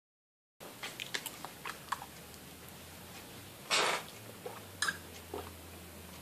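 Small wet clicks of a cat lapping milk, then a louder, noisier sip about three and a half seconds in as a man drinks from a plastic milk jug.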